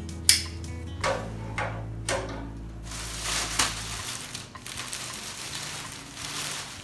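Cardboard packaging being handled and pulled open during unboxing, several sharp knocks and crackles against a steady low hum that stops partway through.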